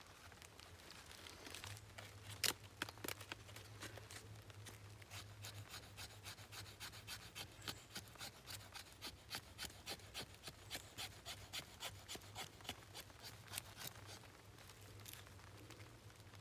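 A quick run of short scraping strokes at about three to four a second, with a sharper knock near the start, fading out near the end.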